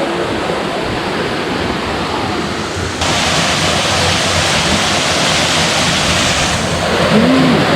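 Waterfall: a steady, loud rush of falling water, turning louder and hissier suddenly about three seconds in.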